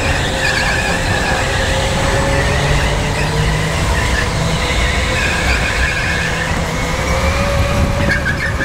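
Go-kart at racing speed, its tyres squealing in long, wavering high notes through the corners over the kart's steady low running rumble.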